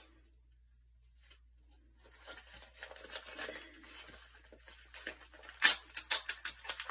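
Hands crinkling and tearing at a package's wrapping, starting about two seconds in. A run of sharp, loud rips comes near the end.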